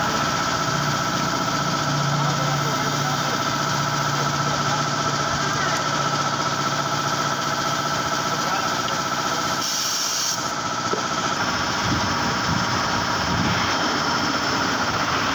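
An engine or motor running steadily with a constant whine, the sound shifting briefly about ten seconds in.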